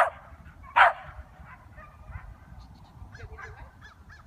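A corgi puppy barking: two short, loud barks, one right at the start and one just under a second in.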